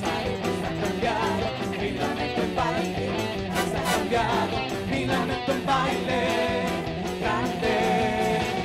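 Live band playing a rock-style worship song: voices singing over drum kit and electric guitar.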